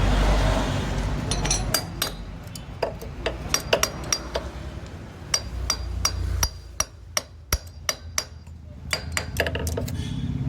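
Sharp, irregular metallic clinks and taps of the timing chain and engine parts being handled during engine assembly, a couple of dozen over several seconds. A low rumble fades out in the first second or so.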